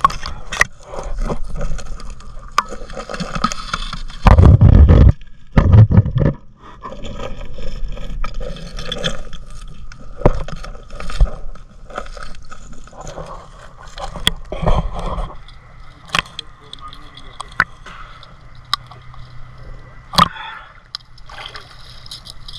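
Underwater sound heard through a submerged camera in murky canal water: scattered knocks, clicks and scraping, with two loud, low rushing bursts about four and six seconds in.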